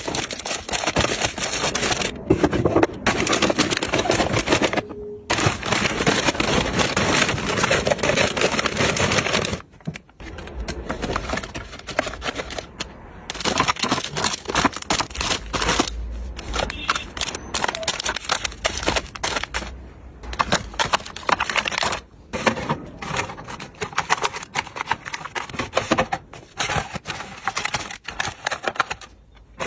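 Plastic snack wrappers crinkling and rustling as packets are handled and set into plastic organizer bins, with small taps and clicks. The crinkling is dense for the first third, then thins to scattered crackles and taps.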